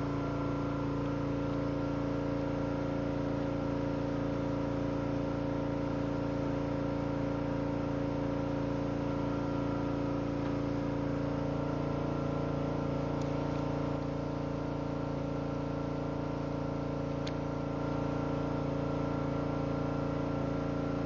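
Portable gas generator engine running steadily under load, powering a pressure washer, a constant droning hum. The level dips slightly for a few seconds past the middle, then comes back up.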